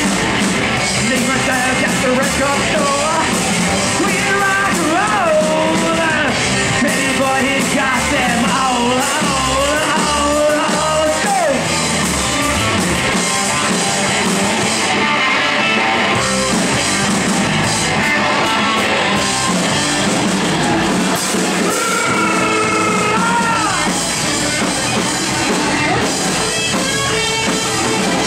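Live rock band playing a loud up-tempo number: electric guitar, drum kit and keyboard, with a lead line that bends up and down in pitch over the band.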